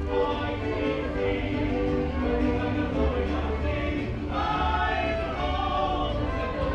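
A live mariachi band playing, with several voices singing together. The singing comes in stronger about four seconds in.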